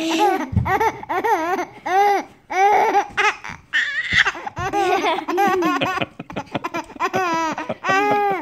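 A baby laughing hard at his older brothers, in a long run of pitched laughing bursts that each swoop up and down, with short breaths between them.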